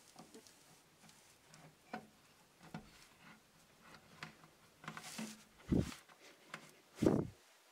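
Scattered light clicks and knocks, then two heavier thuds about six and seven seconds in.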